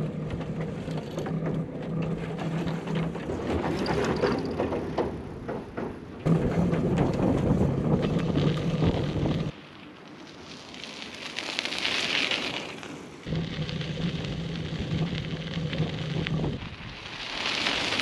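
Hyper Explorer mountain bike riding: tyres rolling and crunching over a metal-grate boardwalk and a gravel trail, with rattle and wind noise on the bike-mounted camera. About two-thirds of the way through, the bike crunches past a trailside camera, the hiss rising and then fading as it goes by.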